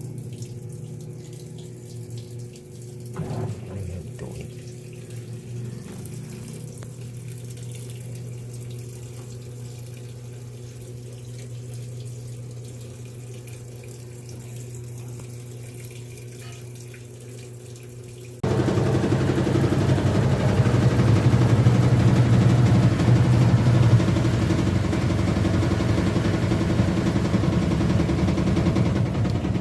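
Sharp automatic washing machine with water running into or through it over a steady electric hum. About two-thirds of the way through, the water suddenly becomes much louder and rushing.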